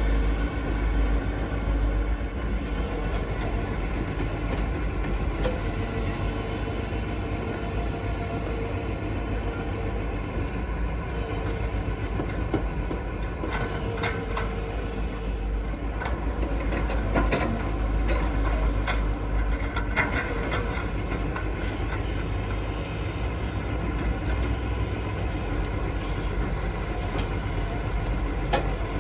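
Heavy vehicle engine running with a steady low rumble, with a few sharp clanks near the middle.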